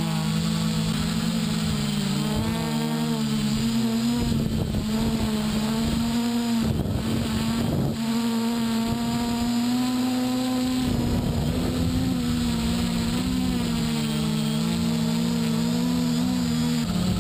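Quadcopter's electric motors and propellers whining steadily, heard through the camera mounted on the craft, the pitch wavering as the throttle changes. About three bursts of rushing noise pass over it.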